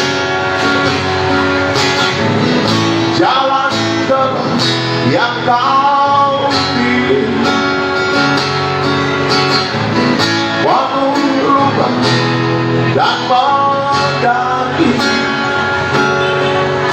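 Instrumental passage of a guitar-led band song: steady strummed guitar backing, with a lead line that slides up and down in pitch several times.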